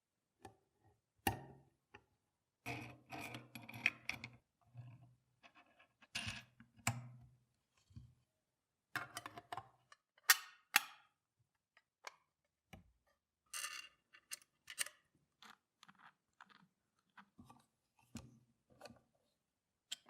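Irregular clicks, clinks and short scraping or rubbing noises of tools and small metal parts being handled on a workbench.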